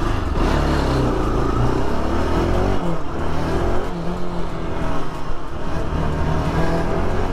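Bajaj Pulsar NS200's single-cylinder engine running while the motorcycle is ridden, its pitch rising and falling with the throttle. It drops briefly about three seconds in, then pulls up again.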